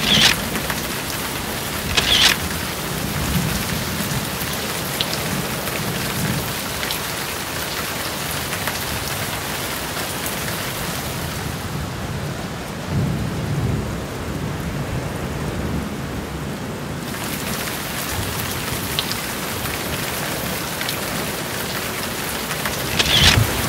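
Steady rain hiss with low rolls of thunder, twice: once near the start and once about halfway through. The high hiss of the rain thins for a few seconds in the middle.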